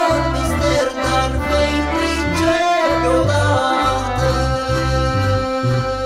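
Christian song: a man singing into a microphone over keyboard accompaniment of held chords and a steady, stepping bass line.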